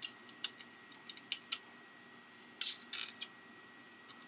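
Small screws clicking and tapping against the plastic and metal of an Xbox 360 Slim casing as they are set into their slots: a handful of sharp, separate clicks, with a quick cluster about three seconds in.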